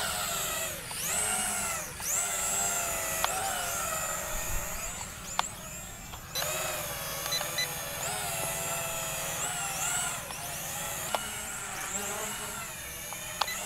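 Toy camera quadcopter's four motors and propellers whining in flight, the pitch rising and falling over and over as the throttle and stick inputs change.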